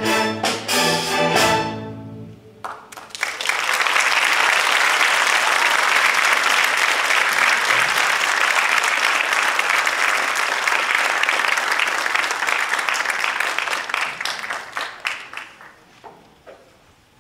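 A string orchestra with drum kit ends a piece on a few loud, accented final chords. Audience applause breaks out about three seconds in, holds steady, then thins to scattered claps near the end.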